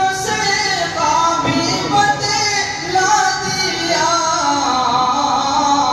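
A man singing a naat, an Islamic devotional poem in praise of the Prophet, unaccompanied into a headset microphone, in long held notes that bend and ornament the melody.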